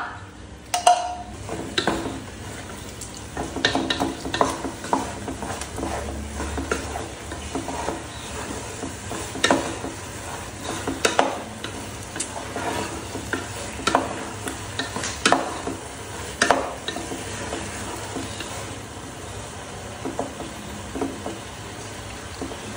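Loose carrot halwa being stirred in a pan over high flame. The stirring utensil scrapes and knocks against the pan at an uneven pace, roughly once a second, over a low sizzle of the cooking mixture.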